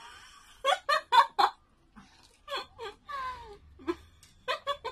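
A woman's pained moans and whimpers mixed with short bursts of laughter, with one longer moan falling in pitch midway. They are a reaction to the burning heat of spicy noodles.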